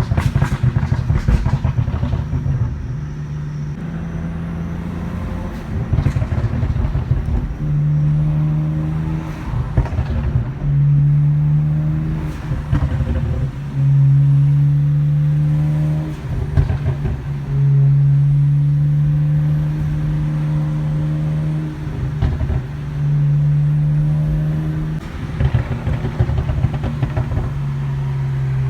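BMW 335 straight-six exhaust held at steady revs in stretches of one to three seconds. Between them, as the throttle drops off, come bursts of crackles and pops.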